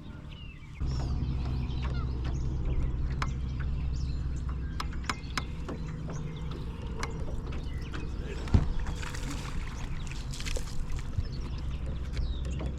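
A boat motor running with a steady low drone that starts suddenly about a second in, with scattered sharp clicks and a louder knock about two-thirds of the way through.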